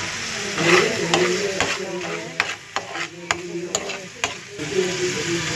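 Egg and potato mixture sizzling in a non-stick frying pan while a spatula stirs it, with a series of sharp taps and scrapes as the spatula strikes the pan between one and four and a half seconds in.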